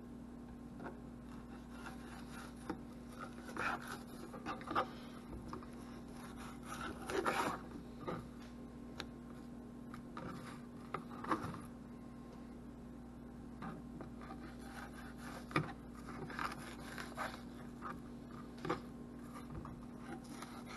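A knife filleting yellow perch on a plastic cutting board: soft, irregular scrapes and taps of the blade against the board, over a steady low hum.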